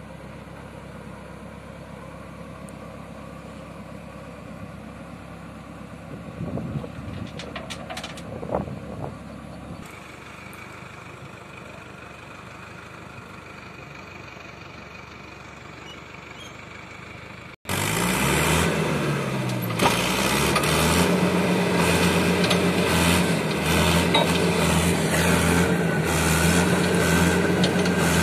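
Mahindra Arjun 605 DI tractor's diesel engine running steadily while its hydraulics tip a trolley load of sand. At first it is faint, with a few knocks about seven to nine seconds in. About two-thirds of the way through it cuts abruptly to the engine heard close and much louder.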